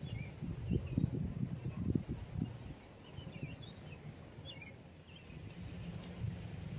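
Small birds chirping now and then, with short high calls, over an irregular low rumble in the first couple of seconds. A low steady hum comes in near the end.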